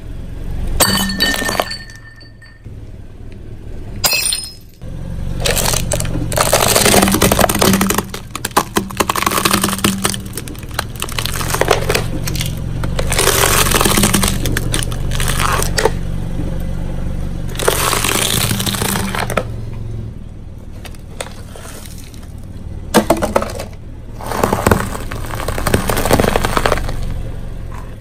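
A car tyre rolling slowly over objects one after another and crushing them: plastic cracks and snaps, and dry food crunches. The crackling comes in several separate bouts, some a few seconds long.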